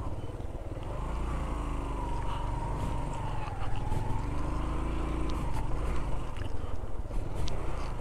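Motorcycle engine running steadily while riding, with a wavering higher tone over it for several seconds in the first part.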